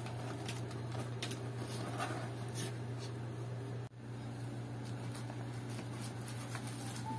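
Light clicks and rustles of hands handling a wireless keyboard and mouse in their cardboard box and plastic wrap, over a steady low hum. There is a brief break just under four seconds in.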